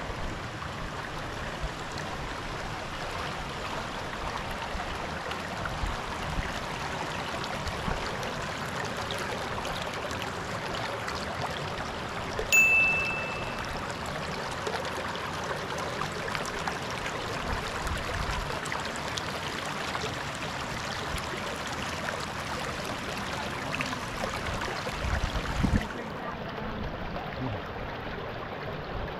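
Stream water running and trickling into a rock pool, a steady rush. About twelve seconds in, a single short high ding rings out over it.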